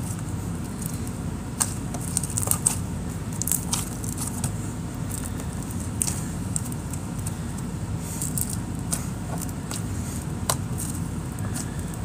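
A knife cutting a melamine-foam magic eraser into small cubes: scattered crackling clicks as the blade goes through the foam and taps the surface beneath, over a steady low hum.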